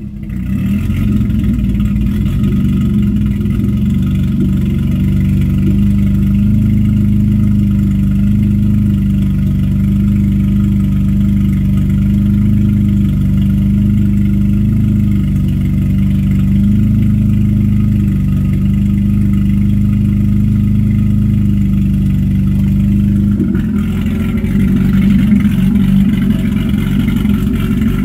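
Swapped-in Nissan VQ35HR 3.5-litre V6 running at a steady speed, a constant low drone. About five seconds before the end the sound turns louder and rougher.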